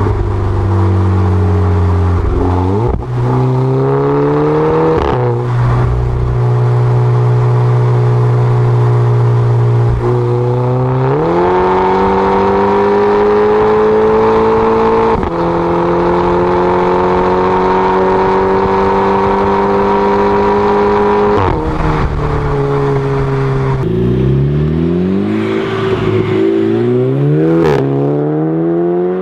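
Audi/VW car with a DSG dual-clutch gearbox, engine and exhaust running: revs held steady, stepping up about 11 s in and dropping about 21 s in, then climbing in quick rises near the end. Short sharp exhaust pops stand out at several points; the rise-drop pattern with a pop is the DSG upshift 'fart'.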